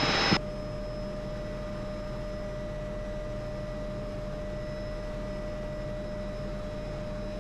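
MD500E helicopter in flight, heard from inside the cabin: a steady drone of turbine and rotors with a constant high whine.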